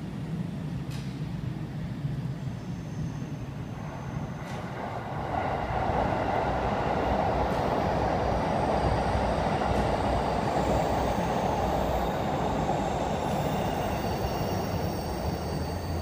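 Rumble of a passing vehicle, swelling about five seconds in and holding, with faint high whines near the end.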